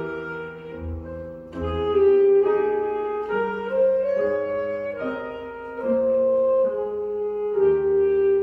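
Alto saxophone playing a slow solo melody of held notes that change every half second to a second, with lower accompaniment notes underneath.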